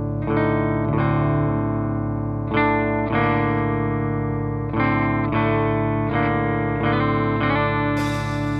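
Music: electric guitar chords, each struck and left to ring, a new chord every second or so. A brighter, hissier layer joins near the end.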